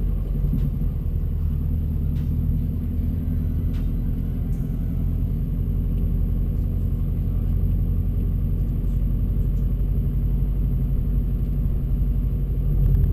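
2002 Subaru WRX's turbocharged flat-four, an EJ25 built bigger, running steadily while driving, heard from inside the car as an even, low rumble.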